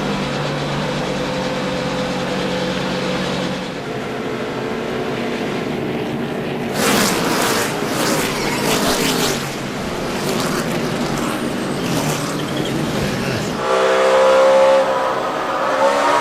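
NASCAR Sprint Cup stock cars' V8 engines running at race speed during a wreck. About seven seconds in, a harsh burst of noise lasts a couple of seconds, with scattered cracks after it, as cars slide and hit. Near the end one engine's pitch rises and falls.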